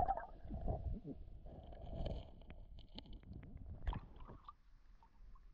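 Muffled rumbling and sloshing of creek water heard through a camera held underwater, with a few sharp clicks and knocks about three to four seconds in.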